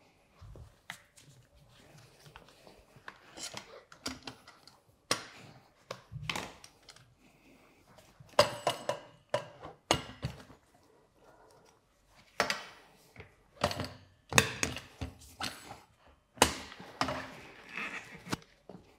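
Irregular metal knocks, clicks and clatter as a Rabaconda Street portable tire changer's duck head and bead breaker are positioned on a motorcycle wheel rim, growing busier and louder about halfway through.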